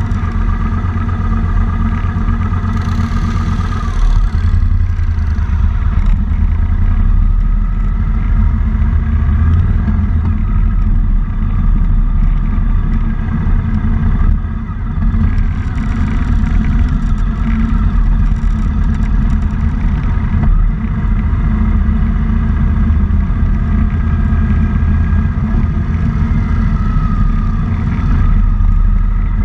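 Motorcycle engine running as the bike rides slowly through turns, with a heavy low rumble throughout and a brief hiss about three seconds in.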